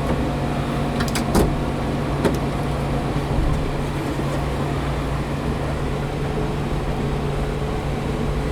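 Fuel-injected 5.0-litre V8 of a 1992 Ford Bronco idling steadily, heard from inside the cab, with a few sharp clicks between about one and two and a half seconds in.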